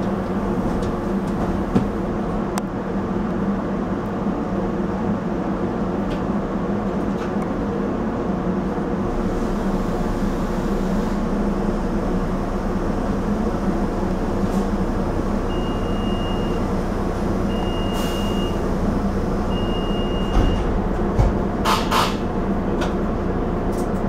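A Rotem Silverliner V electric commuter rail car standing at a station with its onboard equipment humming steadily. About two-thirds of the way through come three short high beeps, about two seconds apart, then a few clicks.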